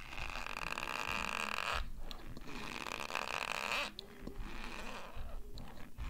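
Dry cornstarch being chewed close to the microphone, a squeaky, crunchy creaking. It comes in long bouts of a second or two, with short breaks about two seconds and four seconds in.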